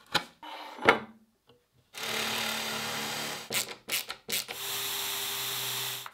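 Cordless drill-driver running twice, each run about a second and a half, driving screws through steel brackets into the wood. Before it come a few sharp clicks and a short scrape from a chisel paring out a recess.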